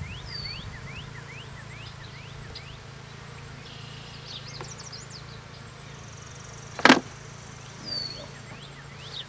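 Honeybees buzzing steadily at an open hive, while a bird chirps repeatedly in short rising notes. A single sharp knock about seven seconds in.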